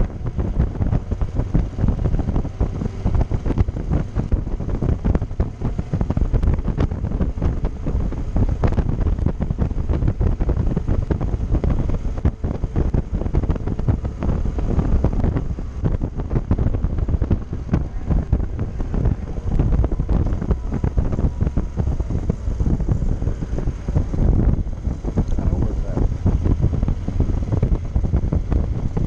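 Wind buffeting the microphone on a moving motorcycle at road speed, a steady low rumble of wind and road noise.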